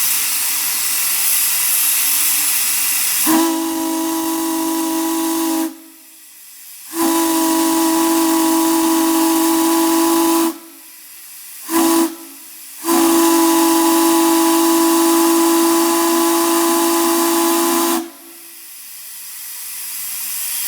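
Steam whistle blown on live steam. A loud hiss of steam comes first. About three seconds in come four blasts: two of a few seconds each, a brief toot, then a long blast of about five seconds. Each blast sounds several steady tones at once, and the hiss rises again near the end.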